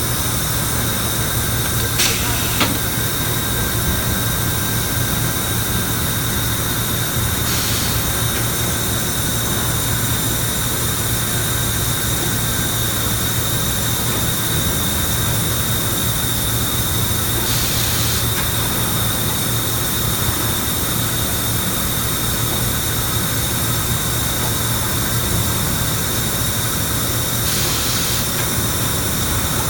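An industrial furnace in a powdered-metal plant running with a steady mechanical hum and a thin high whine. Four short hisses break through, spaced several seconds apart.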